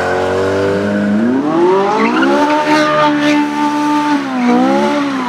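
BMW M3 engine revving hard: after a steady first second the pitch climbs, holds high for a couple of seconds, dips briefly near the end and rises again.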